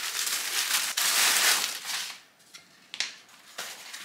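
A plastic bag of clothes crinkling and rustling as it is handled and pressed into a suitcase, for about two seconds, then a few soft taps and rustles.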